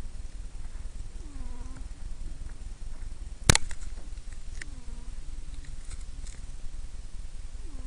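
Sleeping domestic cat snoring, a short, buzzy falling tone about every three seconds with each breath. A single sharp click about three and a half seconds in is the loudest sound.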